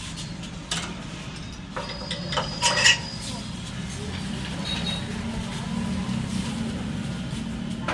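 A few sharp metallic clinks of metal engine parts being handled in the first three seconds, over a steady low hum.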